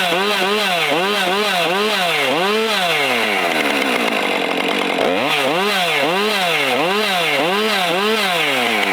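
Chainsaw engine revved in quick repeated blips, about two a second, as it is test-run after a repair. The revs die down about three seconds in and pick up again about five seconds in.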